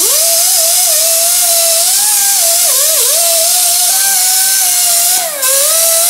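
Pneumatic die grinder with a wire wheel scrubbing the cylinder block's head-gasket mounting surface. It gives a loud, high whine over a hiss, and the pitch sags each time the wheel is pressed onto the deck and then recovers. There is a brief dip about five seconds in.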